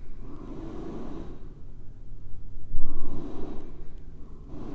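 Person breathing close to the microphone: a few slow breaths, each about a second long, over a steady low hum.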